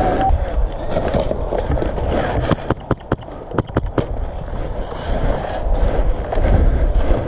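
Airsoft gunfire: a string of sharp snaps between about two and a half and four seconds in, over steady rumbling movement and wind noise on a body-worn microphone.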